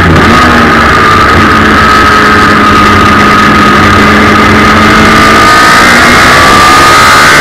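Suzuki Hayabusa 1300 inline-four motorcycle engine in a race car, very loud from onboard, running hard on track. Its pitch holds fairly steady through a corner, then dips slightly and climbs again near the end.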